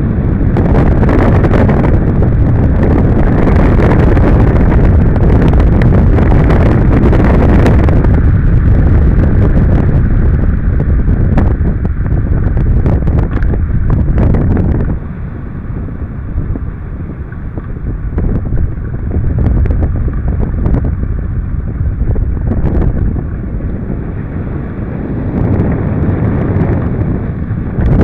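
Rushing airflow buffeting the microphone of a wing-mounted action camera on a hang glider in flight. It drops in level about halfway through and picks up again near the end.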